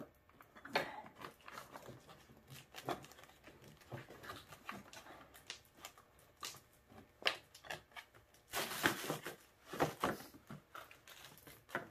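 Hard plastic snowmobile console panel being handled and pressed into place by hand: scattered clicks, knocks and rubbing, with a louder rubbing stretch about three-quarters of the way through.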